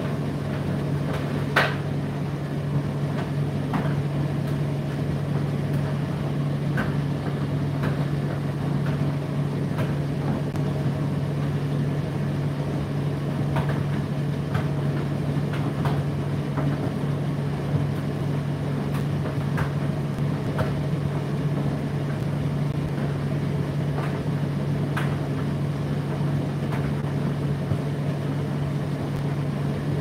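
Indesit IDC8T3 condenser tumble dryer running mid-cycle: a steady motor hum with the drum turning. Irregular light clicks and taps come through as the load tumbles, the sharpest about a second and a half in.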